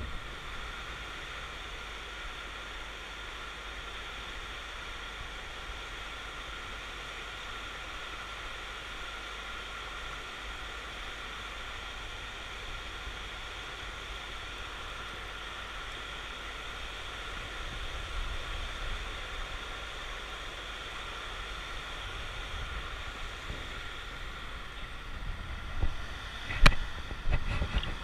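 Steady rush of river water spilling over a low dam, with wind rumbling on the microphone. Near the end come a few knocks, one of them sharp and the loudest sound here.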